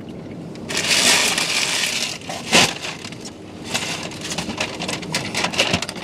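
Paper burger wrappers and a paper takeout bag rustling and crinkling: a loud burst of crinkling about a second in, a sharp crackle, then lighter crackling near the end as the bag is lifted.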